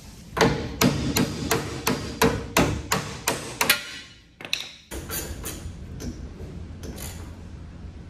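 A brass-headed hammer tapping on locking pliers clamped on an old shock absorber's mounting sleeve, knocking the sleeve off the lower shock stud of a VW Beetle's front axle. About a dozen quick metallic blows at roughly three a second, then a few lighter clinks.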